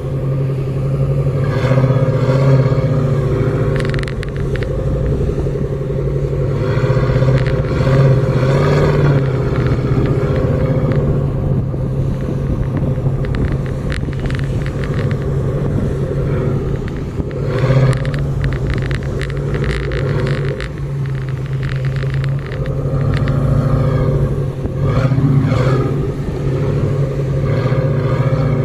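4x4 SUV engine running under load while driving over sand dunes, its pitch rising and falling with the throttle over a low rumble. Short knocks and rattles come from the bumpy ride.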